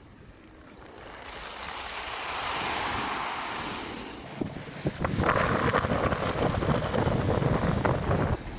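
Sea waves washing onto a pebble beach: one wave swells in and fades, then a louder wave breaks and rushes up with a clatter of many small clicks, cutting off sharply near the end. Wind buffets the microphone with a low rumble.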